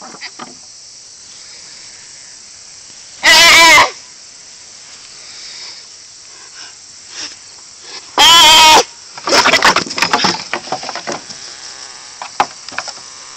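A deer fawn stuck between wooden fence rails bleating in distress: two loud, wavering bleats about five seconds apart. After the second bleat come a couple of seconds of knocks and rustling.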